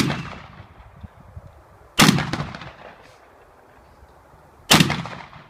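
Three shotgun shots, the first right at the start, then about two seconds and about four and a half seconds in, each sharp crack trailing off in a short echoing tail.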